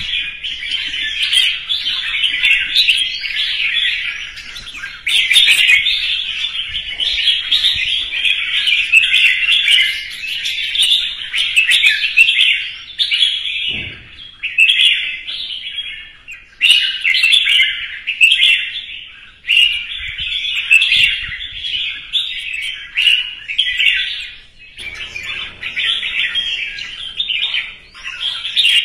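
Red-whiskered bulbul singing a long, fast run of whistled and chattering phrases almost without pause, breaking off briefly a few times: the full competition song that bulbul keepers train for.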